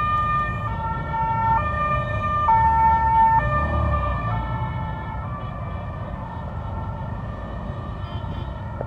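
Two-tone emergency siren switching between a high and a low note about once a second, growing fainter in the second half, over the low rumble of a column of motorcycles.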